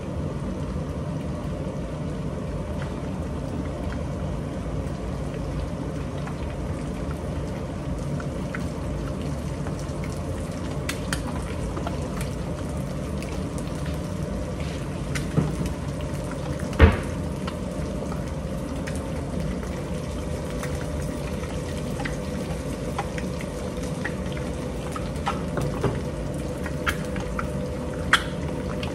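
Omelette frying in a pan on a gas stove: a steady cooking hiss, with a few sharp knocks from a cupboard and cookware being handled, the loudest about seventeen seconds in and several more near the end.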